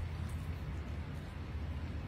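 Steady low background hum with faint noise over it; no distinct eating or utensil sounds stand out.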